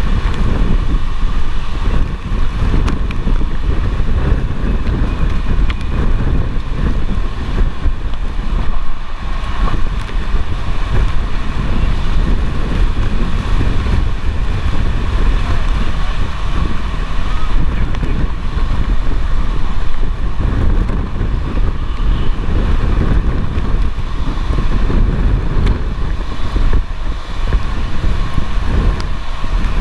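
Violent tornado winds buffeting an armored storm-chase vehicle, heard from inside the cabin as a loud, gusting rumble that rises and falls without a break.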